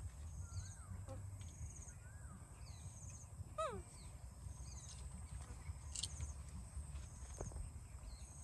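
Rural outdoor ambience. A bird's short wavering whistle repeats every couple of seconds, with faint high chirps, over a low wind rumble. About three and a half seconds in comes one brief squeal that falls sharply in pitch.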